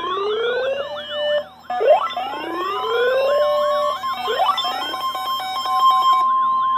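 Several sirens sounding together: electronic sirens warbling rapidly up and down, wailing sweeps that rise and restart three times, and a steady high tone that joins about three seconds in.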